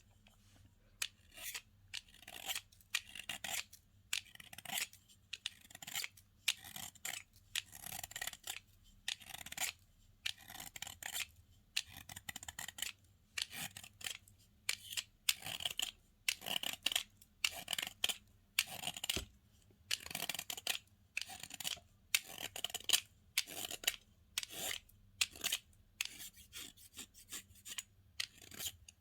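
Slime being squeezed, pressed and stretched by hand, making short crackly, sticky squishes over and over, roughly one to two a second.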